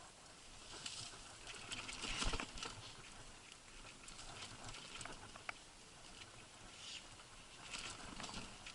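Citycoco electric scooter rolling over wet, muddy ground: a crackle of tyre patters and small knocks, with a louder burst about two seconds in and another near the end.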